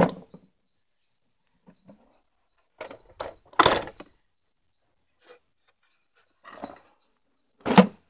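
Plastic clunks and knocks from a vacuum cleaner's housing being handled and its cover opened and shut. The thunks come a second or more apart, with the loudest cluster about three and a half seconds in and another strong one near the end.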